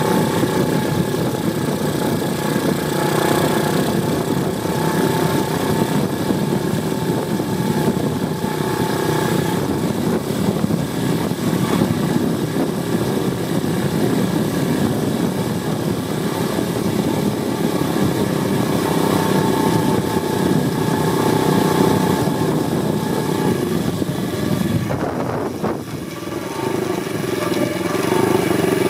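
Apollo 125cc pit bike's single-cylinder four-stroke engine running steadily while the bike is ridden, heard close up from a camera mounted on the bike. About 25 seconds in the engine note drops briefly, then rises again as the bike accelerates.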